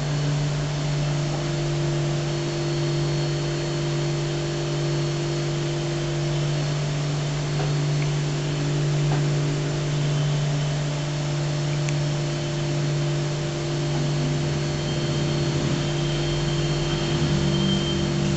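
Steady electrical or mechanical hum: a constant low drone with a fainter higher tone, over an even hiss, with a couple of faint clicks midway.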